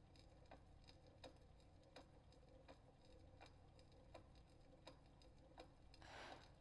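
Faint, steady ticking of a clock in a quiet room, stronger and weaker ticks alternating, about one stronger tick every three quarters of a second. A soft hiss swells briefly near the end.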